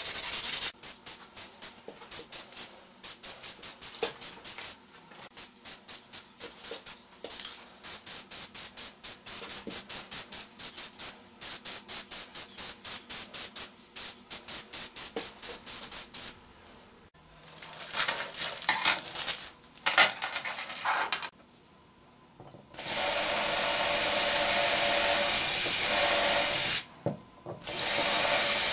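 A long run of quick, even clicks lasting about fifteen seconds, then a few scattered noises. Near the end a cordless drill runs twice, the first time for about four seconds, and these are the loudest sounds.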